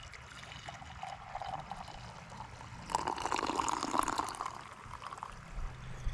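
Coffee poured from a French press into a ceramic mug, the stream of liquid splashing into the cup. It grows louder about halfway through, then stops shortly before the end.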